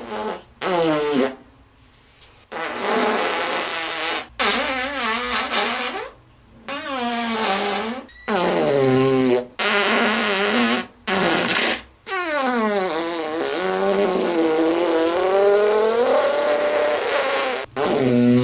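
A string of fart sound effects: about ten separate farts with short gaps between them, their pitch wobbling up and down. The longest starts about two-thirds of the way in and drags on for some six seconds.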